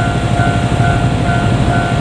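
Japanese level-crossing alarm ringing its repeating electronic ding a little over twice a second, over the low running of a KiHa 47 diesel railcar set moving slowly past.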